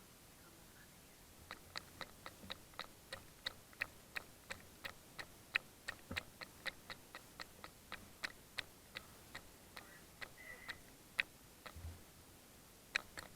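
Water dripping quickly from a leaking, partly dismantled bathroom faucet, about three sharp drips a second at slightly uneven spacing, starting about a second and a half in.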